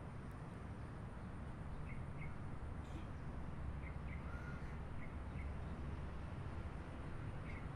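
Steady low rumble of distant highway traffic, with a bird giving short double chirps every second or two and a brief whistled note about four seconds in.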